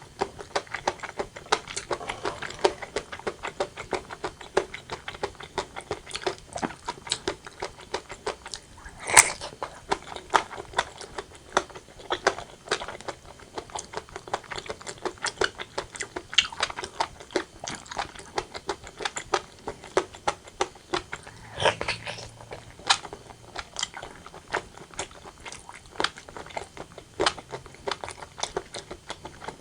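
Close-miked mouth sounds of eating braised pork belly and white rice: steady, dense, wet chewing and smacking clicks, with two louder sharp clicks, one about nine seconds in and one about twenty-two seconds in.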